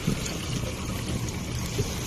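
Sea water splashing and rushing alongside a boat, over a steady low hum, with a couple of slightly louder splashes near the start and near the end.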